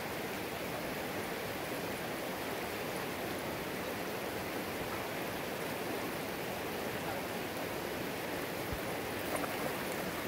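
Steady rush of a shallow mountain river running over rocks and riffles.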